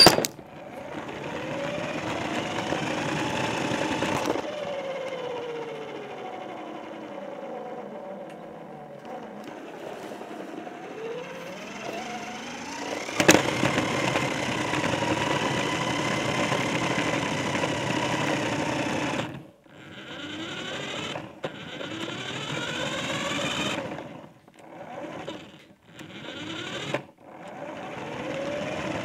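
Small electric motor and gears of a toy RC car whining, the pitch rising and falling as it speeds up and slows down, with a sharp knock about 13 seconds in. Near the end the motor starts and stops several times in short spurts.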